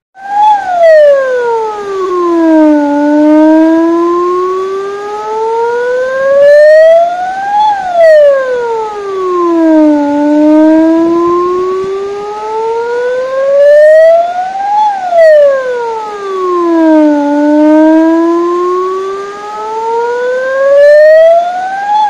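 Electronic warning siren wailing, its pitch sliding down and then slowly climbing back up in cycles about seven seconds long, three times over. It is the alarm of a water-level-sensor flood early-warning system, which sounds when the river's water rises.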